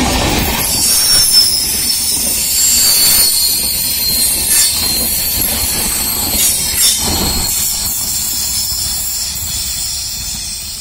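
LHB passenger coaches running past on a curve, their wheels squealing in high, shifting tones over the rumble and clatter of the bogies. The squeal and rumble fade as the last coach moves away near the end.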